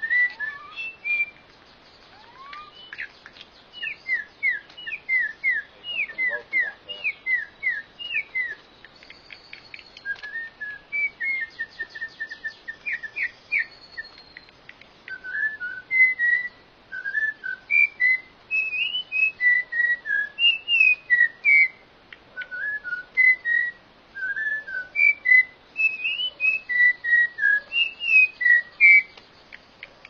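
Troupials singing: loud, clear whistled notes repeated in phrases, with fast downward-gliding notes in the first third and slower two- and three-note phrases later.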